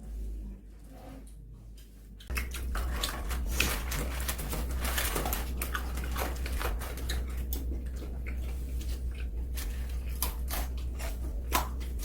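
Fried chicken being bitten and chewed close to the microphone, with crisp crunches and wet mouth smacking that start about two seconds in and go on in quick irregular clicks.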